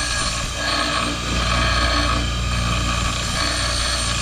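Ryobi bench grinder running steadily, a short piece of cut steel tube held to its wheel to grind the rough cut edges smooth.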